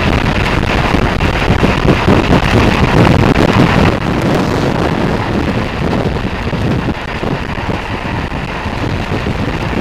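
Strong wind buffeting the microphone of a motorcycle ridden at motorway speed on a wet road, over a steady rumble of engine and tyre noise.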